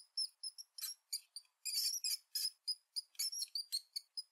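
Mouse squeaking: a rapid, irregular series of short high-pitched squeaks, several a second, some bending slightly in pitch.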